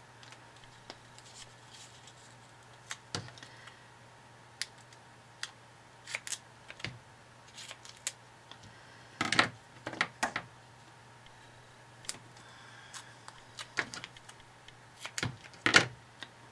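Scissors snipping a roll of double-sided foam mounting tape into small squares, with light clicks and rustles of the tape and paper pieces being handled. The sharpest, loudest snips come about nine seconds in and again near the end.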